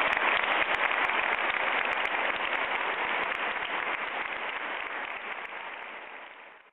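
Audience applauding, many hands clapping together, the clapping fading out over the last couple of seconds.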